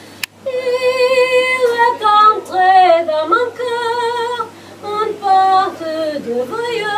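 A woman singing solo and unaccompanied, holding long notes with a wavering vibrato.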